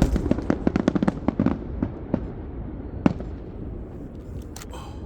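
Fireworks going off, a fast string of crackling bangs in the first second and a half that thins out into scattered pops. One sharper bang comes about three seconds in, and then the display fades away.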